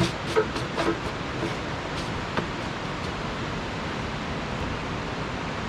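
Steady hiss with a quick run of about five light clicks and knocks in the first second, and one more about two and a half seconds in: small hard objects being handled on a work surface.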